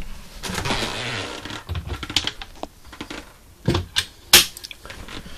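Irregular clicks and knocks, with some rustling, as an ambulance storage compartment door is opened and handled. The sharpest knock comes about four seconds in.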